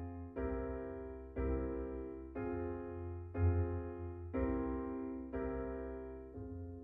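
Background music: a keyboard plays chords, a new chord struck about once a second and fading before the next.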